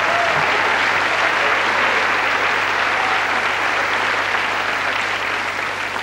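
Audience applauding: dense, steady clapping that eases off a little near the end.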